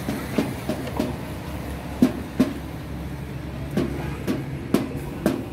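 Irregular hollow knocks and clatters, about ten in five seconds, from a plaster-mixing bowl and idol moulds being handled and set down while plaster of Paris is poured. A steady low hum runs underneath.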